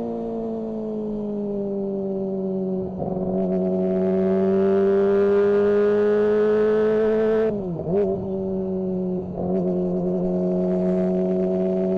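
Kawasaki ZX-25R's 249 cc inline-four engine running under way, its note mostly steady and gliding slowly. The note breaks briefly about three seconds in, dips sharply and recovers just before eight seconds, and breaks again a little after nine seconds.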